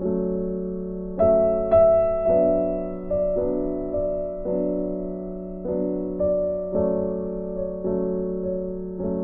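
Soft background piano music: slow notes struck about every half second to second, each ringing and fading.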